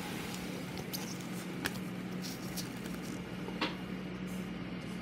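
Faint handling of a trading card with a nitrile-gloved hand: a few soft ticks and light rustles, the clearest about one and a half and three and a half seconds in, over a steady low hum.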